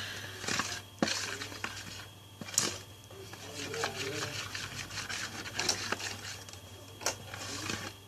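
A utensil stirring and scraping a slime mixture in a bowl, with scattered sharp clicks and knocks against the bowl.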